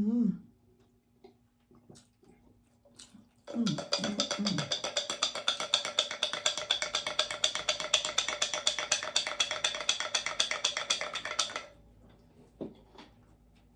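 A stretch of fast percussive music with a quick, even beat, starting about three and a half seconds in and cutting off suddenly about eight seconds later.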